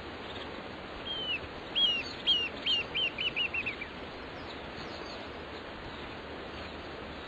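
Narrow-billed woodcreeper (chinchero chico) singing: a run of about nine falling notes, starting about a second in, that come faster and shorter as the run goes on, over a steady background hiss.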